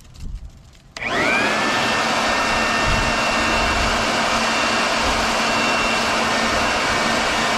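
Electric leaf blower switched on about a second in, its whine rising quickly to speed, then running steadily with a high whine over the rush of air.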